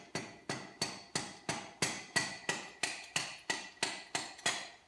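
Socket-and-handle assembly on a router shaft being tapped on the floor, a steady run of about fifteen sharp knocks, roughly three a second, each with a short metallic ring. The taps are driving the router's worn bottom bearing off its seat, and they stop just before the end.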